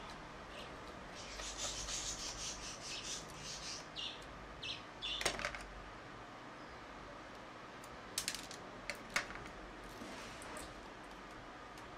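Hands working on a small camcorder lens assembly and tools: a stretch of light scratching and rustling, then a few sharp small clicks and taps, the loudest about five seconds in and two or three more near the end.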